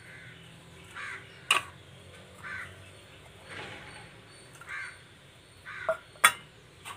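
Crows cawing repeatedly, about once a second. Three sharp clinks of a utensil against a dish cut through, louder than the caws.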